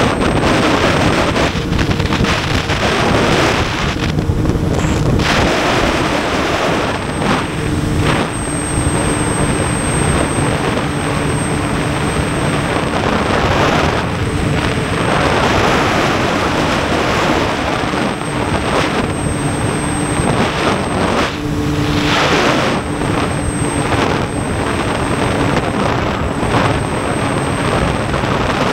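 Honda CBR600F's inline-four engine running under way, half buried in heavy wind rush on the camera microphone. The steady engine note breaks off briefly several times and then returns.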